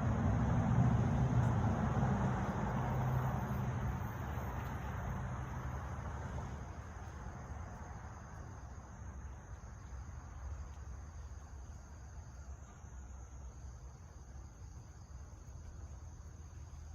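Outdoor ambience: a vehicle passing by, its low rumble fading away over the first several seconds, under a steady high insect drone.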